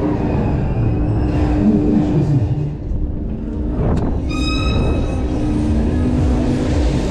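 Top Spin thrill ride in motion: a steady heavy rumble of the ride machinery and rushing air as the gondola swings and flips. About four seconds in there is a sharp click, then a brief high-pitched tone.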